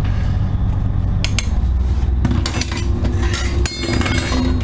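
A metal ladle and lid clinking against a large stainless steel stockpot: a few sharp clinks about a second in, and more around three seconds in, the last ringing briefly. A steady low hum of the boat's engine runs underneath.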